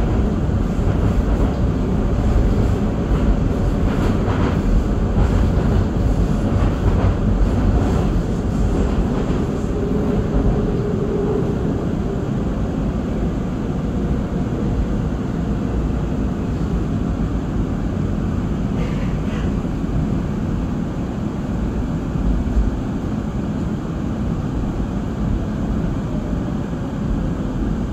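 Seoul Metro Line 2 train running along the track, a steady low rumble of wheels and running gear heard from inside the car, easing a little after about ten seconds.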